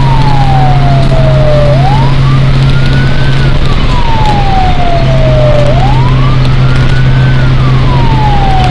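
Fire truck siren sounding a slow wail, its pitch rising quickly and then falling away, about once every four seconds, heard from inside the cab over a steady low drone.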